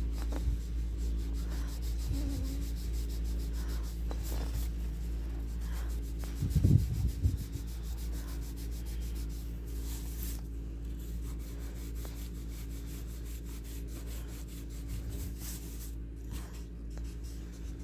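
Graphite pencil shading on paper: soft, repeated rubbing and scratching strokes over a steady low hum. A brief low bump comes about a third of the way in.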